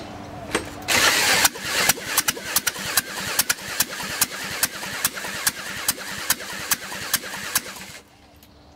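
Heavy-duty corded power drill spinning up and cranking a Volkswagen four-cylinder engine by its crankshaft bolt. It goes with a loud burst, then a run of even pulses about three or four a second as the cylinders come round, and stops suddenly near the end.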